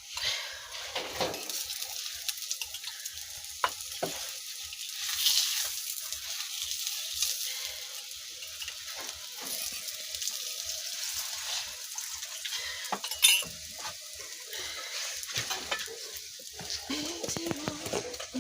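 Food sizzling in a hot pan with a steady hiss, with occasional clicks and scrapes of a utensil against the pan and one louder knock about two-thirds of the way through.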